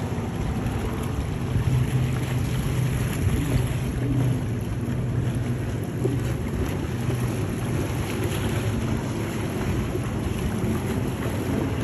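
Boat engines running with a steady low drone, with wind noise on the microphone.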